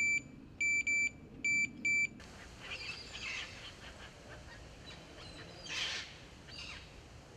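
Electronic fishing bite alarm beeping five short times in quick irregular bursts, the sign of line being pulled across it by a bite. After that, faint rustling and a brief swish of a rod being cast.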